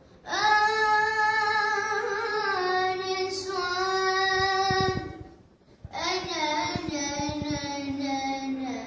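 A young, child-like voice singing long, drawn-out Arabic melodic phrases, two of them with a brief breath about five seconds in.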